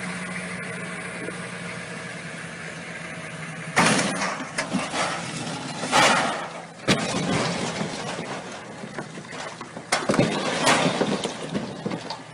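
A boat engine running steadily. From about four seconds in, loud sudden rushes of noise break in, with a sharp crack about seven seconds in.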